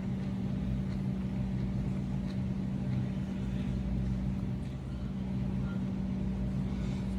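A steady low mechanical hum with a few faint light clicks.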